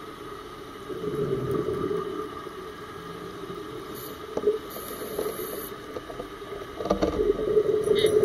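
Diver's exhaled breath bubbling out of a regulator underwater, in two rumbling bursts: about a second in and again near the end.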